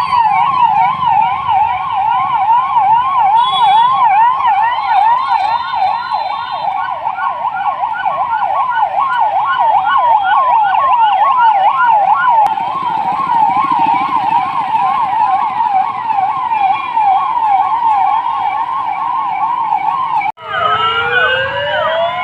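Police vehicle siren on a fast yelp, a rapid rising-and-falling warble about three times a second. Near the end it breaks off suddenly, and several sirens wail together at different pitches, sliding up and down over each other.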